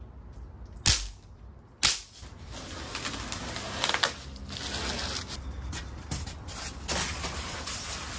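Two sharp knocks about a second apart, then a rough, uneven noise broken by smaller clicks.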